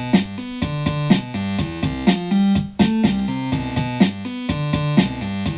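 Intro music: keyboard-like chords and notes over a regular drum beat.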